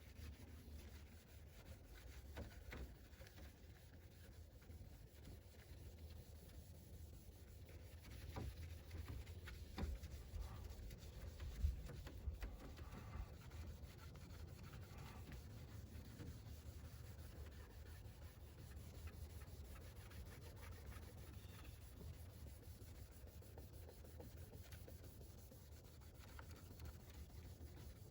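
Faint rubbing of a cloth over a plastic composite headlight lens as cleaner is wiped on, with a few light knocks about midway.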